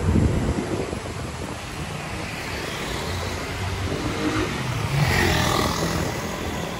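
Street traffic with cars going by, one passing close and swelling up then fading about five seconds in.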